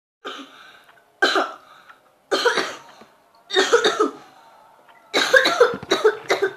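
A person coughing: four separate coughs about a second apart, then a quick run of coughs near the end.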